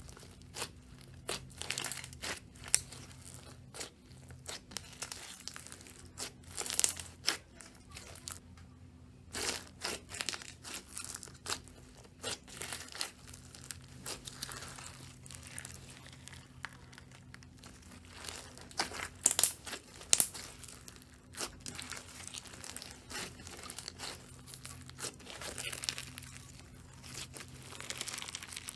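Slime being squeezed and stretched by hand, giving irregular crackling, popping and crinkling sounds, with louder clusters of crackles now and then.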